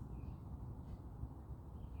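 A few short, faint bird chirps, one just after the start and one near the end, over a steady low rumble.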